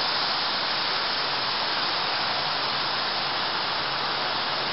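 A steady, even hiss with no other sound.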